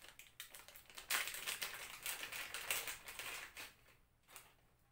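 Clear plastic packaging bag crinkling and rustling as it is handled and opened, a dense crackle that swells about a second in and dies away near the end, with one short click after it.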